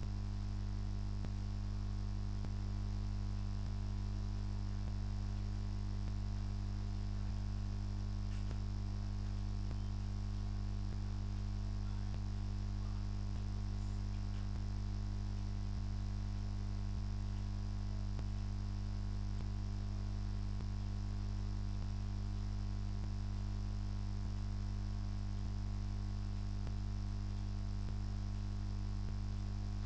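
Low, steady electrical mains hum with its higher overtones, unchanging throughout.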